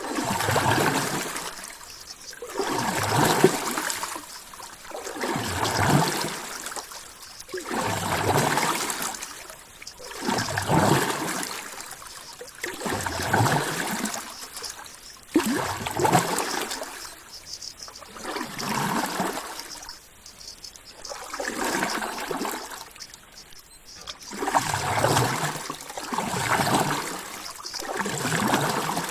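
Ocean water sloshing and trickling in regular surges, swelling and ebbing about every two and a half seconds.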